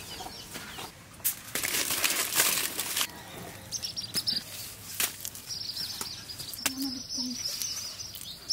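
Hands working a leaf wrapping and wet clay: a loud rustling stretch early on, then a few sharp pats. Small birds chirp in the background through the second half.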